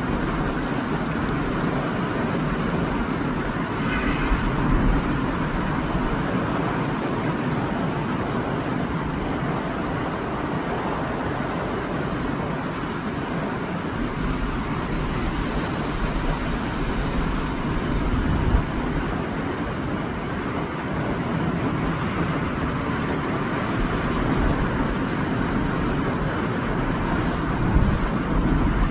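Steady rushing outdoor noise with an uneven low rumble underneath, and two brief louder bumps, one past the middle and one near the end.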